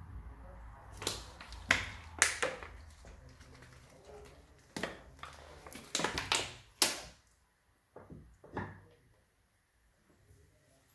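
Tools and parts being handled in a workshop: about ten scattered sharp clicks and knocks, the loudest near two seconds in and near seven seconds in.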